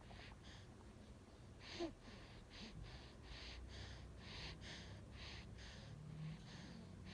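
Baby breathing quickly in short, faint breaths, roughly two or three a second, with a brief small squeak about two seconds in.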